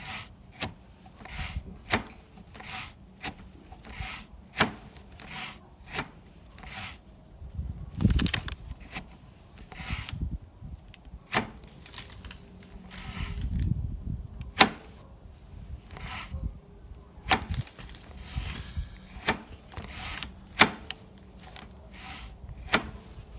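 Motorcycle throttle grip and its small metal and plastic parts being handled: irregular sharp clicks and knocks, a couple of short rubbing or scraping stretches partway through.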